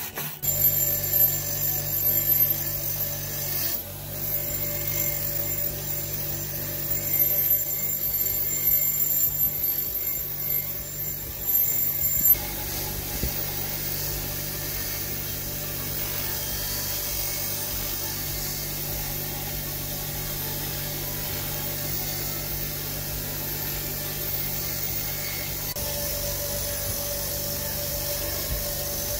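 A wooden axe handle being rubbed down by hand, an uneven scraping that comes and goes. About twelve seconds in it gives way to the steady running of a bench grinder's wire brush wheel, with small steel axe parts held against it.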